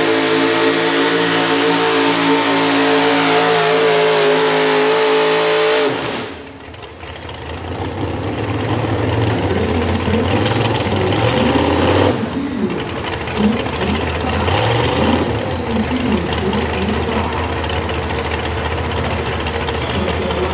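Four-wheel-drive pulling truck engine held at high revs under load with a steady, slightly wavering pitch. About six seconds in the throttle is cut and the engine drops to a lower, uneven rumble.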